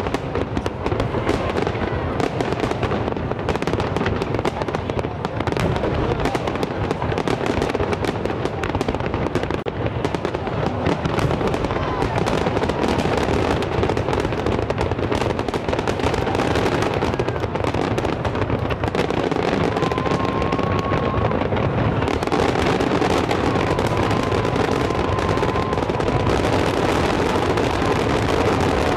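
Fireworks finale barrage: aerial shells bursting in a dense, unbroken stream of rapid bangs and crackle, with no pause.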